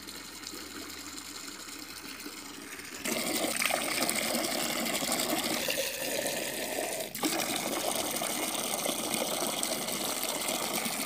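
Water running and splashing steadily into a large pot as a container is filled; the rushing sound jumps louder and closer about three seconds in.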